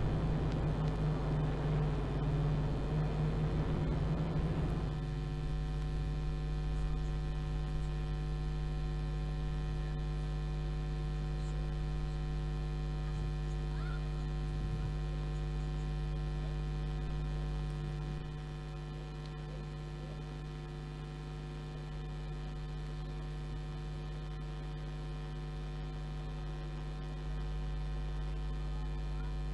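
Steady electrical mains hum with a buzzy row of overtones on the broadcast audio. For about the first five seconds the noise of cars on the circuit lies under it, then that cuts off suddenly, leaving only the hum.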